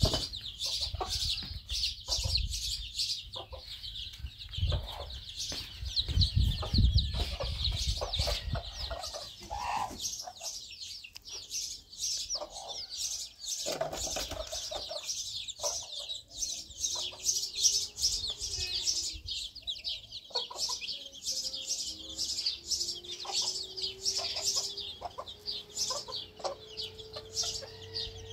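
Domestic chicks peeping continuously, a dense stream of short, high cheeps, with an occasional lower cluck from the mother hen.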